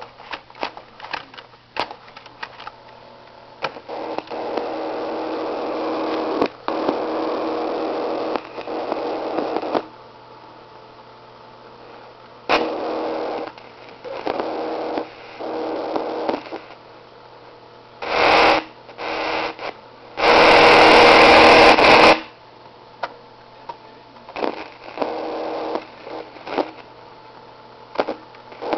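Circuit-bent circuit board sounding through a small speaker: irregular crackles and clicks, and stretches of buzzing noise that start and stop abruptly, over a steady low hum. The loudest part is a burst of hiss about twenty seconds in.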